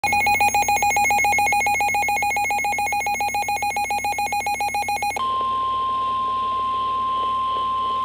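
Midland NOAA weather alert radio sounding its warning alarm: a rapid electronic beeping, about ten pulses a second, for about five seconds. It then switches to a single steady tone near 1 kHz, the NOAA Weather Radio warning alarm tone that comes before the spoken tornado warning.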